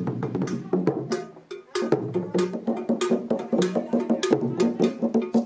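Music with a quick beat of sharp wood-block-like clicks over held tones, dropping away briefly about one and a half seconds in before picking up again.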